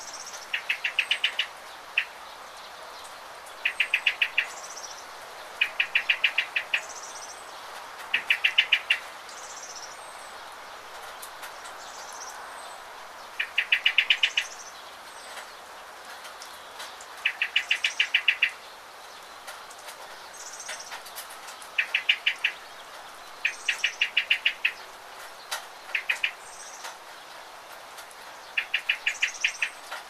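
Steady hiss of rain with a songbird singing over it: a short, rapid trill of evenly spaced notes lasting about a second, each led by a high thin note, repeated every two to four seconds.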